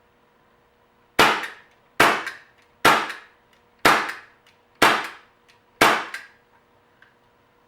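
Crosman CO2-powered pellet revolver firing six shots, about one a second, each a sharp crack.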